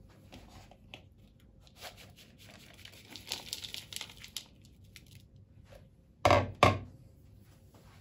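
Chopped hazelnuts poured from a plastic bowl into another bowl, a rustling patter lasting about two seconds, followed a couple of seconds later by two loud dull knocks in quick succession.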